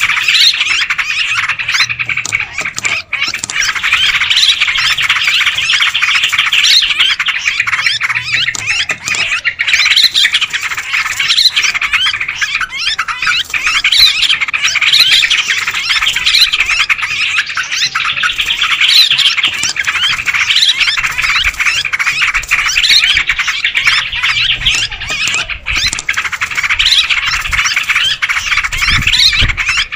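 A noisy flock of yellow-vented bulbuls (trucuk) calling all at once, a dense, unbroken chatter of overlapping chirps, played as a lure call for trapping the species.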